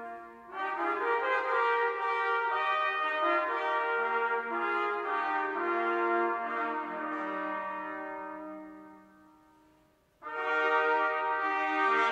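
A church brass choir of trumpets and trombones plays Christmas music in sustained chords. The phrases break off briefly just after the start, and a held chord fades almost to silence. A new phrase then comes in loudly near the end.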